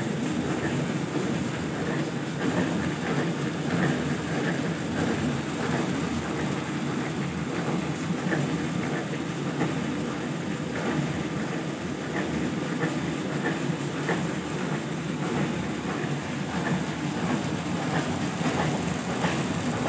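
Paper plate lamination machine running steadily, its rollers turning and feeding film, giving a continuous mechanical running noise with a light clatter through it.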